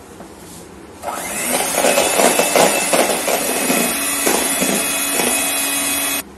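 Electric hand mixer beating non-dairy whipping cream to soft peaks in a plastic bowl. It switches on about a second in and runs steadily, a motor hum under the rough churning of the beaters, then cuts off suddenly just before the end.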